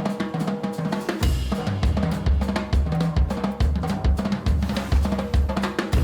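Background music: a band track with a steady drum-kit beat, bass drum and snare about twice a second under cymbals and a bass line.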